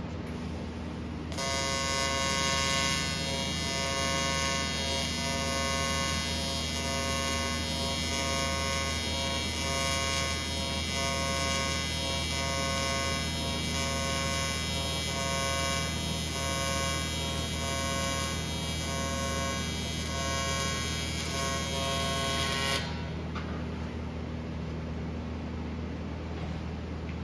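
Electric welding arc buzzing steadily as a bead is laid, starting about a second in and cutting off sharply near the end. Its tone pulses regularly throughout, typical of a TIG arc. A low steady hum continues underneath.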